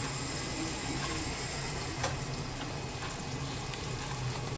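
Pot of chicken noodle soup boiling on the stove: a steady bubbling hiss, with a soft click about two seconds in.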